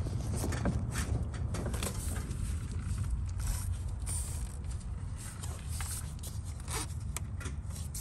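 Plastic fuel injector electrical connectors being pressed, unlatched and pulled off by hand, giving scattered small clicks and scrapes over a steady low rumble.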